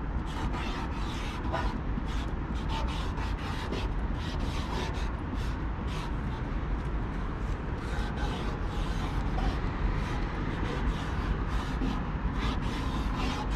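Broad-tipped marker nib rubbing across a painted metal container in short, irregular scratchy strokes, over a steady low rumble.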